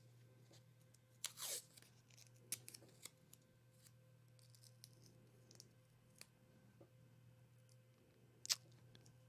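Adhesive tape being pulled and torn: a short rip about a second in and another sharp one near the end, with a few light clicks and taps of handling in between.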